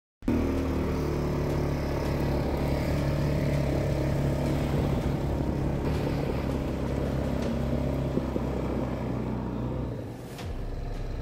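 An engine running steadily with a low drone, starting abruptly; it drops a little in level about ten seconds in.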